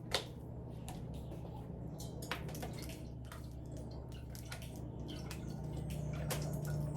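Cooking oil being added to a pot for frying: scattered small drips and clicks, with a sharper click just after the start, over a steady low hum.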